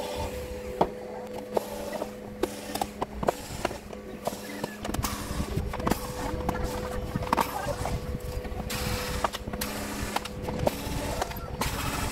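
Screws being taken out of a TV's plastic back cover with a handheld screwdriver: scattered clicks and taps of the tool and screws, over a steady low hum.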